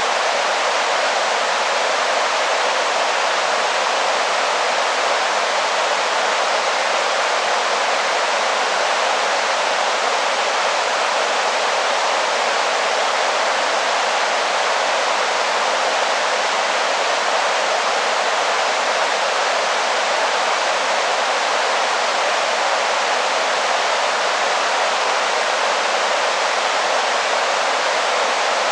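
Steady rushing of a waterfall: an even, unbroken hiss with little deep rumble.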